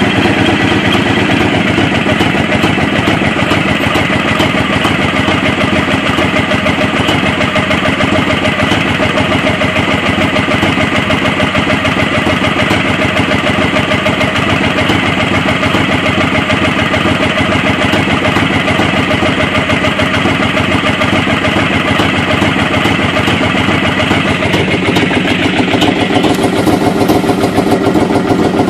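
A 2005 Honda VTX 1300's V-twin engine idling steadily while warming up from cold in winter. It grows louder and fuller about 25 seconds in.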